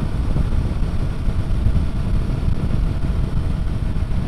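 Steady wind rush and engine drone of a Royal Enfield Himalayan 450's 452 cc single-cylinder engine cruising at speed in sixth gear. The rumble is heavy and even, with no change in engine note.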